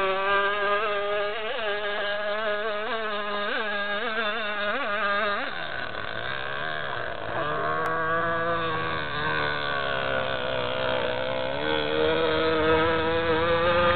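Small two-stroke MVVS 6.5 cc model engine of an RC speedboat running at speed, a high-pitched buzz. For the first five seconds it jumps briefly in pitch about every two-thirds of a second; then the pitch drops and wavers, and climbs again near the end.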